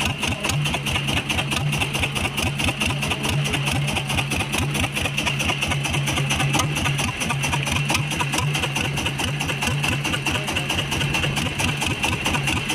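Small boat engine running steadily at low speed, with a fast, even pulse.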